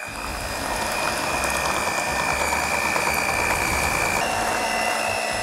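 Electric hand mixer running at a raised speed, its beaters whipping air into cream cheese frosting in a bowl: a steady motor whine over the churning of the beaters, which steps up slightly in pitch about four seconds in.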